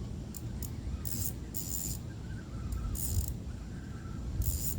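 Fishing reel clicking in short, irregular bursts while a hooked fish is played and reeled in, over a low steady rumble.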